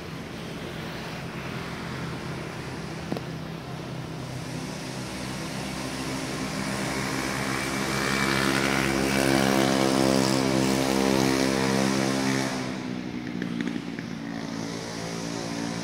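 A motor engine drones steadily at an even pitch, growing louder toward the middle and easing off again near the end, as if passing by. A single short click sounds about three seconds in.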